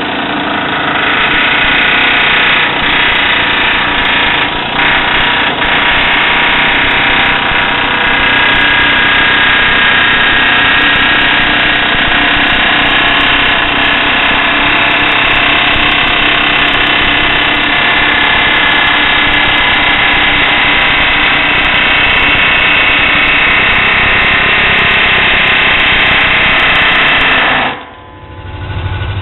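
WNS AH20 pneumatic air hammer hammering a Pittsburgh lock seam closed on sheet-metal ducting, a loud, steady, continuous chatter. It cuts off abruptly near the end, leaving a lower steady hum.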